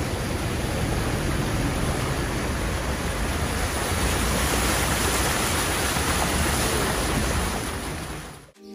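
Steady rushing noise of wind and moving floodwater outdoors, with no voices. It fades out near the end.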